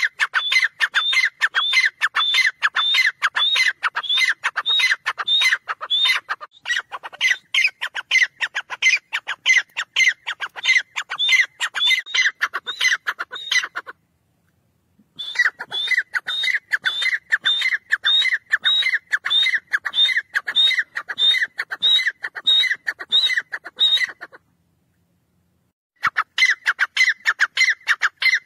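Grey francolin calling loudly: a fast, even run of repeated short, high notes, several a second. The run cuts off into silence twice, for about a second around the middle and for about a second and a half near the end.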